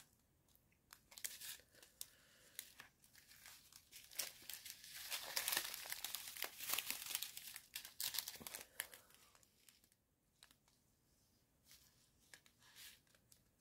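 Thin plastic packaging of a diamond painting kit's rhinestone drill bags crinkling as it is handled, in scattered crackles with a denser, louder stretch from about four to nine seconds in.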